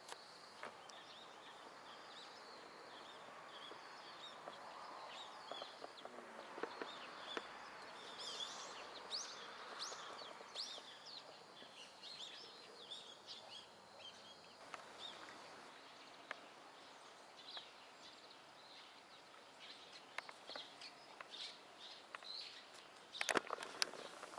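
Small birds chirping and calling over a faint, steady outdoor background noise, with a few sharp clicks near the end.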